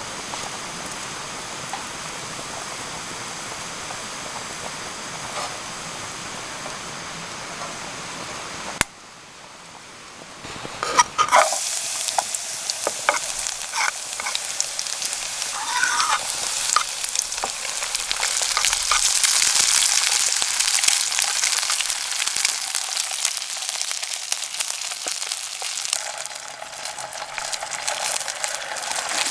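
Food frying in a pan over a wood fire: a steady hiss, then after a cut a loud, dense sizzle with scattered clicks of a utensil stirring in the pan.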